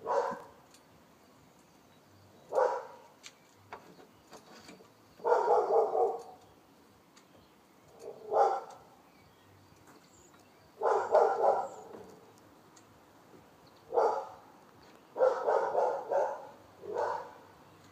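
Dog barking on and off. Single barks alternate with quick runs of three or four barks, separated by pauses of about two seconds.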